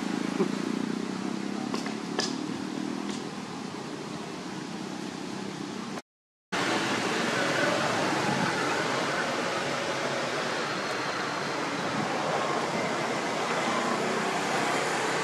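Steady outdoor background noise, an even hiss without distinct events, broken by a half-second gap of silence about six seconds in.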